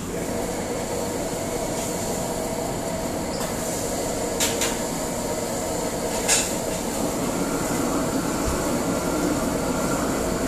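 Steady roar of a commercial kitchen's extractor hood and gas wok range running. A few sharp metal clanks of utensils against pans come around the middle.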